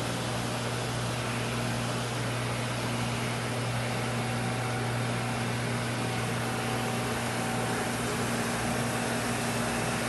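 Rayman RB800 commercial tray and utensil washer running its wash cycle, freshly restarted after the door was closed: a steady low hum from its pump and motor under an even rush of water spraying from the rotating wash arms inside the shut cabinet.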